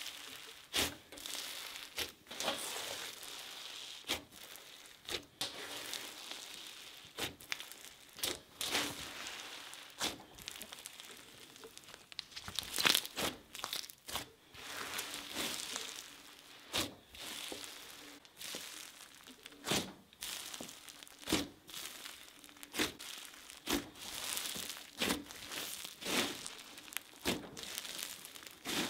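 Thick butter slime packed with loose glitter being kneaded and squeezed by hand: a crunching, sizzling crackle with irregular sharp little pops, one or two every second.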